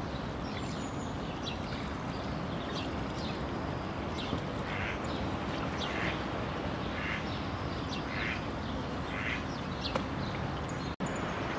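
Mallard hen and ducklings calling: short calls repeating about once a second over a steady background hiss.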